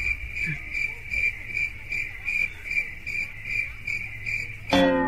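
Cricket chirping in a steady pulse, nearly three chirps a second, cut off near the end by a sudden loud falling tone.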